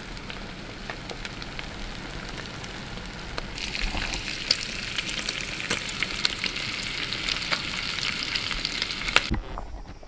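Food sizzling and crackling in a hot frying pan. The sizzle grows much louder about a third of the way in, then stops abruptly near the end.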